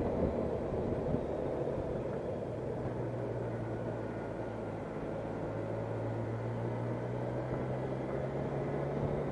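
Motorcycle engine running at low road speed, its note rising gently over the second half, under a steady rush of wind and road noise.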